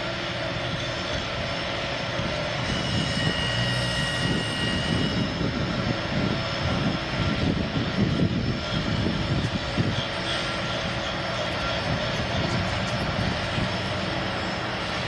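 Steady mechanical drone of track maintenance equipment running at the rail, turning rougher and more rattling for a few seconds in the middle.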